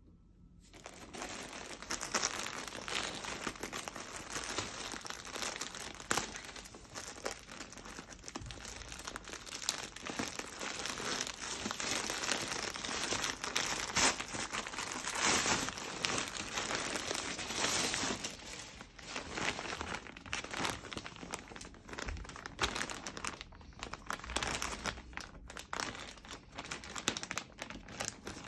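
Plastic mailer bag and the packaging inside it crinkling and crackling continuously as hands tear it open and pull the contents out.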